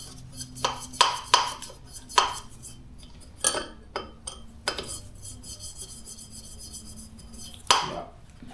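Metal parts of a cylinder head's valves being handled, giving sharp clinks and clicks, several in the first few seconds, with a rapid light rattle in the middle and another clink near the end.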